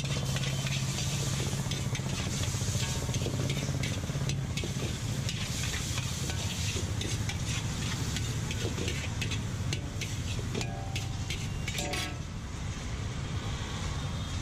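A metal spatula scrapes and clatters against a large iron wok as chicken Manchurian pieces are stir-fried, over a steady sizzle and a low hum. The scraping thins out about twelve seconds in.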